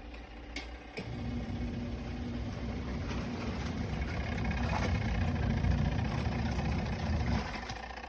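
Small portable twin-tub washing machine's electric motor humming steadily. It starts with a click about a second in and cuts off suddenly near the end.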